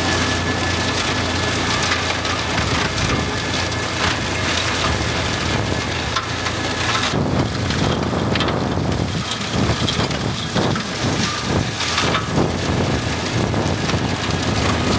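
Old New Holland tractor's engine running steadily at a slow working pace while the brush puller drags pruned grapevine canes out of the row, with continuous crackling and snapping of wood. About halfway through the engine note shifts and the snapping grows denser.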